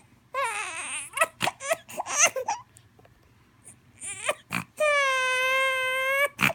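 Seven-week-old baby fussing in short, broken cries. After a pause of about a second and a half, one long steady wail comes near the end.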